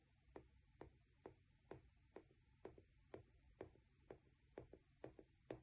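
Faint, evenly spaced clicks, about two a second, over a low steady hum.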